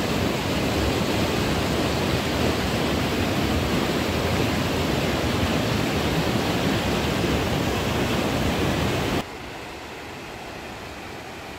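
Steady rush of river water tumbling over cascades. About nine seconds in it cuts suddenly to a much quieter, steady rush.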